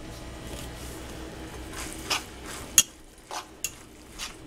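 Cutlery clinking and scraping against a bowl while eating, with several sharp clinks. The loudest comes about three seconds in.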